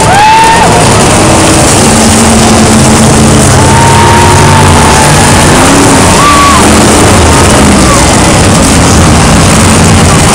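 Monster trucks' supercharged V8 engines running very loud as the trucks drive close past, so loud that the recording is overloaded.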